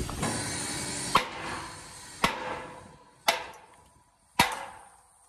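Sledgehammer striking a steel shaft and bearing, four blows about a second apart, each ringing briefly as it dies away. The shaft won't pull out of the trebuchet arm, so the bearing is being smashed to get it off.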